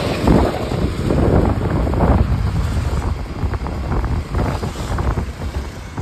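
Wind buffeting the microphone of a phone held on a moving scooter, a heavy low rumble that surges in uneven gusts.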